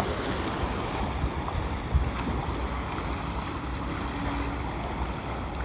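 Small waves washing in and splashing against a stone embankment, a steady rush of water. Wind rumbles on the microphone.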